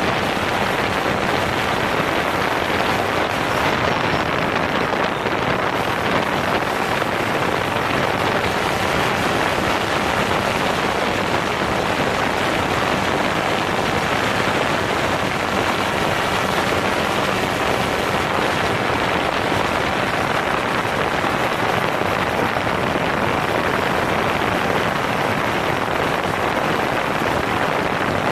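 DJI Phantom 4 quadcopter's motors and propellers running steadily in flight, heard from a camera mounted on the drone itself: an even, unbroken rushing noise with no change in level.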